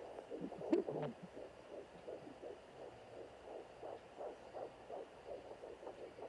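Fetal heart tones on a handheld doppler: a rapid, even whooshing pulse of about three beats a second. A brief scratchy crackle comes about a second in.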